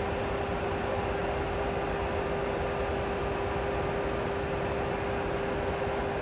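Steady hiss and hum of a Boeing 737 Classic full flight simulator cockpit while taxiing, with one steady tone running through it: the simulator's engine and cockpit noise at taxi.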